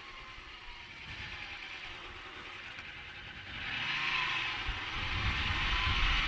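Motorcycle riding noise: engine and wind rush picked up by a rider's headset mic wrapped in a homemade furry windscreen. It grows louder about halfway through as the bike speeds up.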